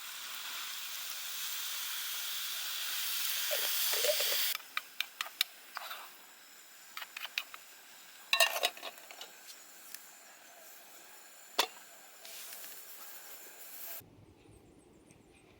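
Pot of rice cooking on a camping stove: a steady hiss that grows louder, cuts off abruptly after about four and a half seconds, then scattered crackles and ticks.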